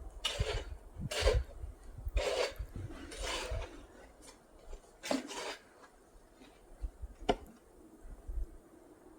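Snow shovel scraping packed snow off a sidewalk in repeated strokes about a second apart, thinning out after about four seconds, with a sharp scrape or knock near the end.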